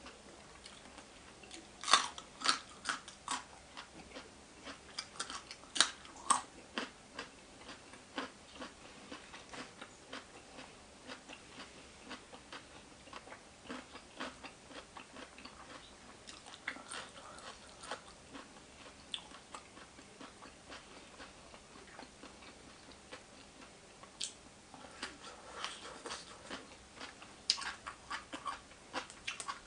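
A person chewing and crunching spicy papaya salad and raw seafood close to the microphone, with wet mouth clicks and crisp crunches coming in irregular bursts. The loudest bursts come about two seconds in, around six seconds in, and again near the end.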